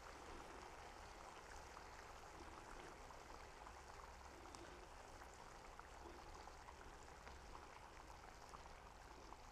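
Faint simmering of a curry gravy in a pan on low gas, with scattered tiny bubbling pops.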